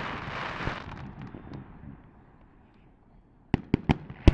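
Aerial fireworks: the crackle of a shell's trailing effects fades away over the first second or so, then near the end a quick run of four sharp bangs, the last the loudest.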